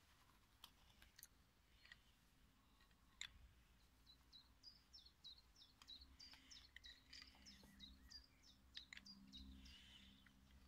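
Very faint sound: a small bird gives a quick run of short, high chirps through the middle, with a few soft clicks of water pump pliers on a brass pipe union.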